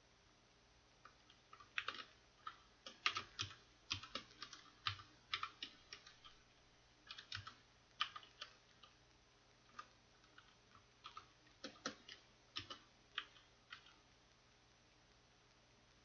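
Computer keyboard typing in irregular runs of keystrokes with short pauses between, starting about a second in and stopping near the end.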